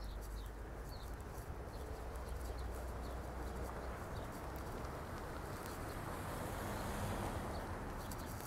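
Footsteps crunching and squeaking on cold, packed snow in a steady walking rhythm, over a steady hum of road traffic.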